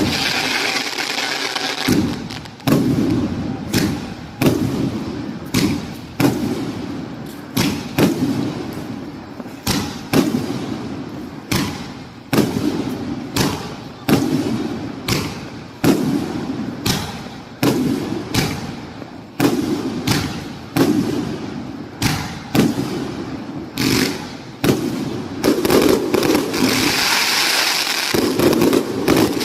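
Firework cake firing a rapid run of shots, a sharp bang every half second or so, each dying away in a rumble. Near the end a hissing, crackling spell mixes in among the bangs.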